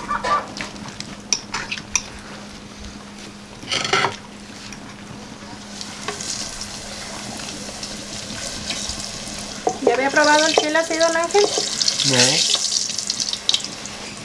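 Forks and hands clinking and scraping on clay plates during a meal, with a light hiss through the second half. A short run of pitched, wavering calls about ten seconds in is the loudest sound.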